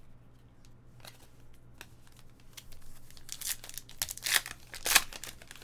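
A foil trading-card pack being torn open by hand, its wrapper crinkling. After a few faint clicks and rustles, a louder stretch of crinkling and tearing comes about three seconds in.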